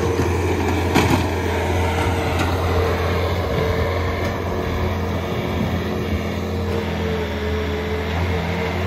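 Skid steer loader's engine running steadily under load, with a constant low hum and a held mid-pitched tone, as the machine unloads from a truck without ramps. A sharp clank about a second in, with a fainter one shortly after.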